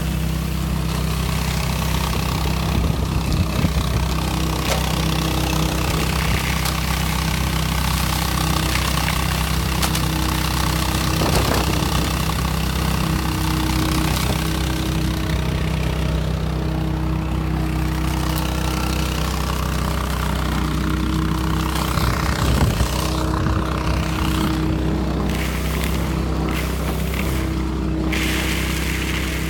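DR Power lawn and leaf vacuum's small gasoline engine and fan running steadily, with the rush of air drawn through its extension hose as it sucks up alpaca droppings; a few sharp clicks of pellets striking the intake.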